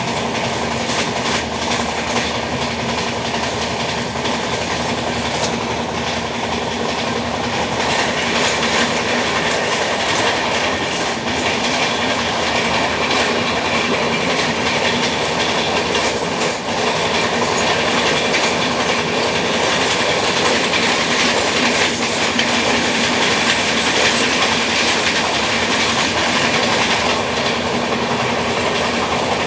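Track noise of an LHB passenger coach running at speed, heard from a window seat: a steady rushing rumble of steel wheels on rail, dense with rapid clicks.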